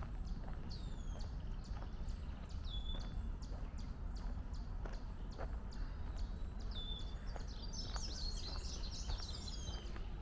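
Wild birds singing and calling in woodland: many high chirps, with a falling whistle that ends on a short held note repeating every few seconds, and a busier run of chirps about eight seconds in. A low steady rumble lies underneath.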